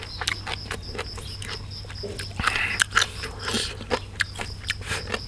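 Close mouth sounds of a man chewing a mouthful of raw beef laab with fresh vegetables: wet clicks and crunches, busiest between about two and a half and three and a half seconds in.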